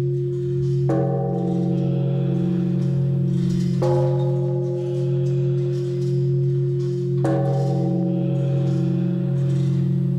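Large bronze temple bell struck three times with a suspended wooden striker, about every three seconds. Each strike adds a fresh clang over a deep, steady ringing hum that carries on between strikes.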